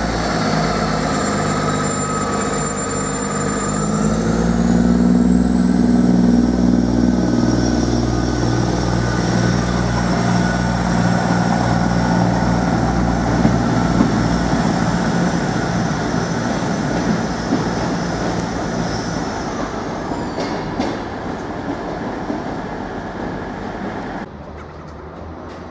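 Class 158 and Class 159 diesel multiple units pulling away. The underfloor diesel engines rise in pitch about four seconds in as they take power, then run on with the rumble of the passing train, fading as it draws away. The sound drops suddenly near the end.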